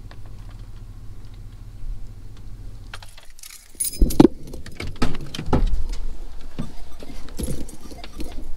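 A low steady rumble that stops about three seconds in, then a run of sharp clinks, rattles and knocks of gear being handled.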